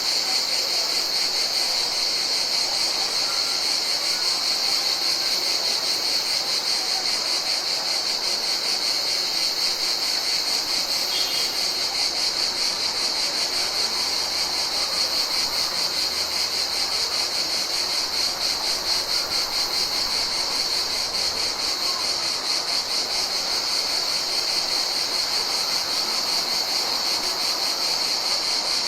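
Summer insects calling in a continuous chorus: a steady, high-pitched trill with a fast, even pulse that does not let up.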